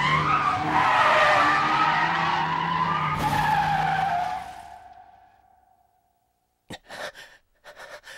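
Car tyres screeching in a long skid over a steady engine note, from a Nissan S13 Silvia, dying away about five seconds in. After a short silence, a man gasps and breathes hard.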